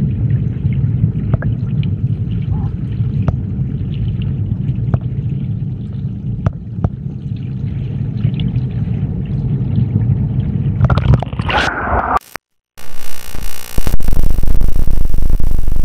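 Stream water heard through a submerged camera: a steady, muffled low rumble with a few faint ticks. About eleven seconds in the camera breaks the surface with a splash, the sound cuts out for a moment, then a loud, even rushing noise follows.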